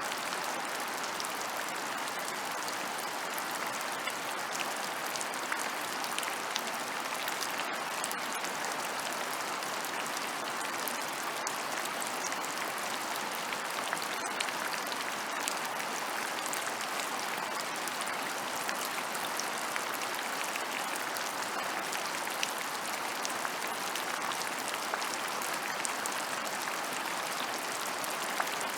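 Steady rain falling on open ground, a dense even patter of drops with scattered sharper drop ticks.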